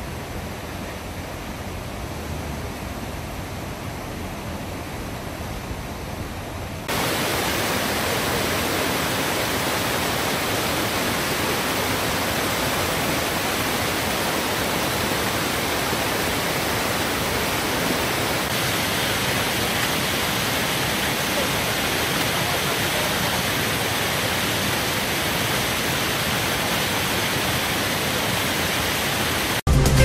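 Steady rush of fast-flowing stream water, stepping up louder about seven seconds in.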